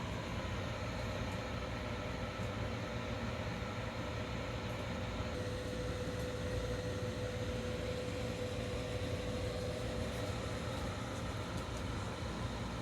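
Steady machine hum and hiss with no breaks. A faint steady tone in it grows stronger from about five seconds in and fades again near ten seconds.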